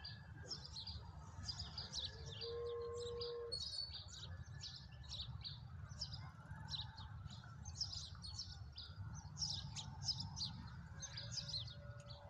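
Many small birds chirping in quick, overlapping calls, over a low steady background rumble. About two seconds in, a short steady hooting tone sounds for just over a second.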